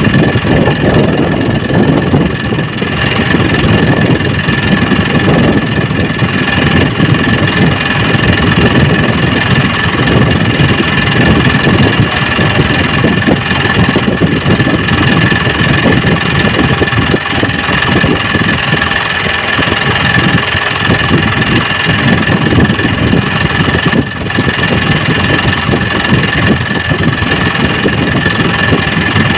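A small engine on board an outrigger fishing boat running steadily at idle, loud and unbroken, with a steady high whine over its low chugging.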